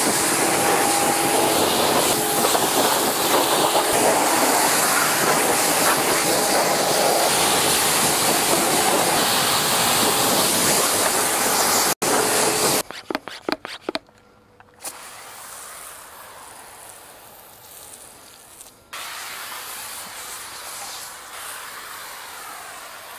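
Pressure washer spraying a jet of water, a loud steady hiss with a faint hum underneath. About thirteen seconds in it stops with a few clicks, and a much quieter spray hiss follows.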